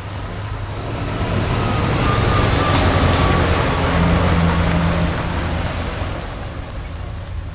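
Heavy diesel logging truck loaded with timber driving past, its engine and tyre rumble swelling to a peak midway and then fading away. A brief hiss comes about three seconds in.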